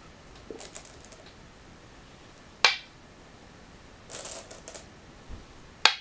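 Go stones snapped down onto a wooden go board, two sharp clicks: one about two and a half seconds in, another near the end. Before each comes a softer rattle of stones in a bowl as a stone is taken.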